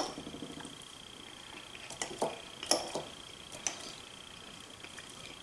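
Metal fork tapping and scraping against a ceramic plate while picking at food: a few light, sharp clicks about two to three and a half seconds in.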